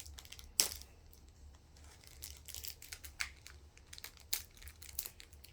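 Foil Pokémon booster-pack wrapper crinkling and tearing in irregular sharp crackles, the loudest about half a second in, as a tightly glued pack is ripped open.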